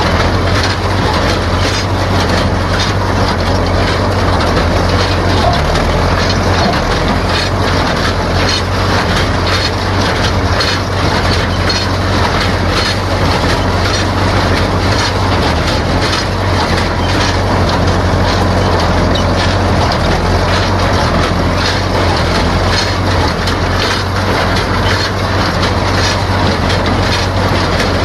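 A utility tractor's engine running steadily while it drives a square hay baler, the baler's plunger and feed mechanism clacking in an even rhythm as it bales hay.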